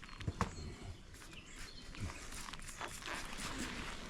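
Honeybees buzzing faintly around an opened beehive, with a few light knocks of hive parts being handled.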